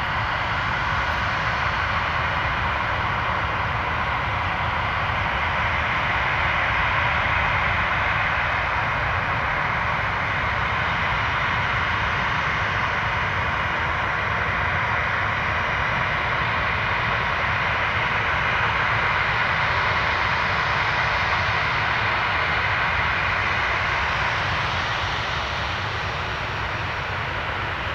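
Ryanair Boeing 737 jet engines running at taxi power as the airliner rolls toward the runway. The jet noise is steady and eases slightly near the end.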